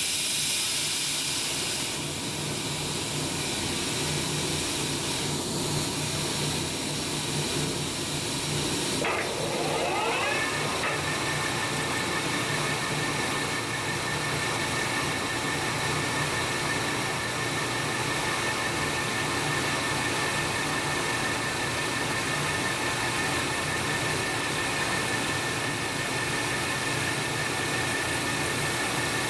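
Metal lathe spinning up about a third of the way in, a rising whine that settles into a steady high tone as a long drill bit is fed into a chrome steel shaft from the tailstock. A steady hiss runs underneath throughout.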